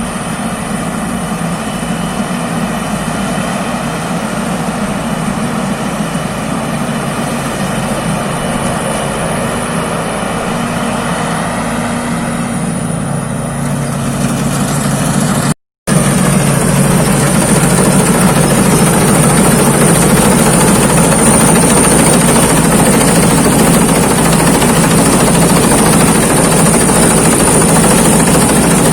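Thai Seng rice combine harvester running steadily while harvesting, with a steady high whine over it. The sound drops out for a split second about halfway and comes back a little louder.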